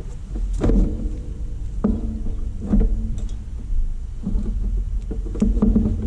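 Handling noise from a large flat screen panel being shifted and lined up on an all-in-one computer's frame. About five soft knocks and bumps sound at uneven intervals over a low rubbing rumble.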